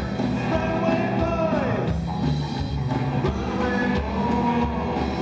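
Live rockabilly band playing: hollow-body electric guitar, slapped upright bass and a stand-up drum kit, with singing.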